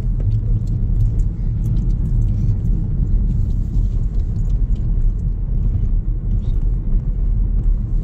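Road noise heard from inside a moving car's cabin: a steady low rumble of engine and tyres on the road, with scattered faint ticks.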